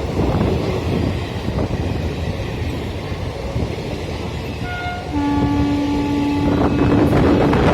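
WAP-4 electric locomotive's horn: a short high-pitched toot about four and a half seconds in, then straight into a longer, lower steady blast that holds to the end. Under it runs the steady rumble of the passing train.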